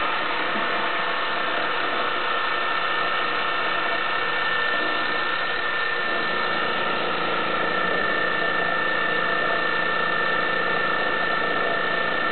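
Milling machine running steadily with a high whine; a lower hum joins about six seconds in.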